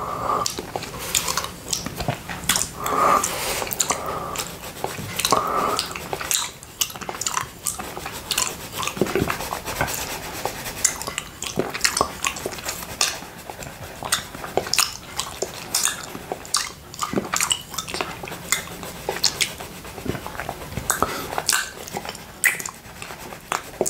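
A tongue licking buckwheat honey off a small glass plate: wet, sticky licks and mouth smacks with many irregular clicks.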